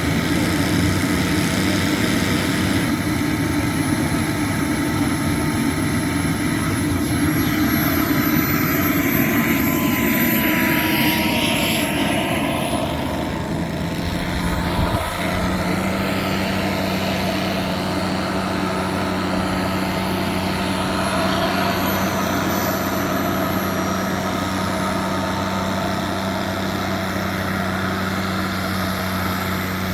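Small model jet turbine, a KingTech K102, running with its thin whine slowly rising and falling in pitch over a steady rush. There is a short low thump about halfway, and a steady low hum joins after it.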